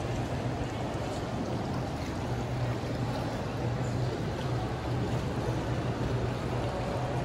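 Steady background din of a large indoor mall: a constant low hum under an even wash of noise, with no distinct events standing out.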